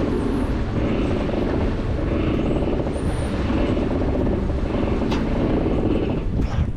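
Steady wind noise buffeting the microphone over water rushing along the hull of a sailing yacht under way, with a single sharp knock about five seconds in.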